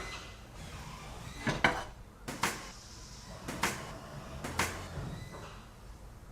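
Sharp wooden knocks and clacks, several in quick pairs about a second apart, like plywood parts being set down and fitted together, over a low steady hum.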